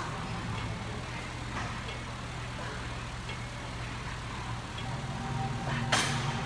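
Steady low machine hum, with a few faint clicks and one sharp clack about six seconds in from the seated chest-press machine's weight stack and handles as a repetition is pressed.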